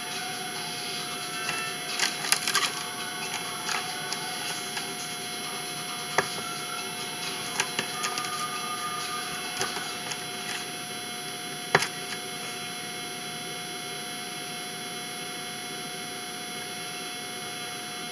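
A steady electrical hum, with scattered clicks and clinks of a spoon against a mixing bowl as chocolate chip cookie dough is scooped and handled, the sharpest about two seconds in and again near twelve seconds.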